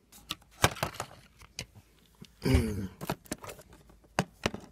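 Clicks and taps of a plastic Blu-ray case and its card slipcover being handled and turned over in the hand, with a short low voiced sound about halfway through.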